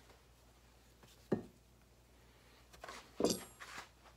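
Knocks and clunks of fork parts and tools being handled and set down on a wooden workbench: one sharp knock about a second in, then a quick cluster of knocks near the end, the loudest of them about three seconds in.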